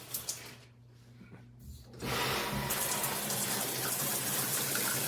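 A few soft clicks, then about two seconds in water suddenly starts pouring from a 16-inch stainless steel rain shower head and keeps running in a steady, even hiss.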